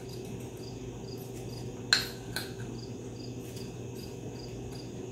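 A cricket chirping steadily in the background, about four chirps a second. There is one sharp click about two seconds in, and a fainter one just after it.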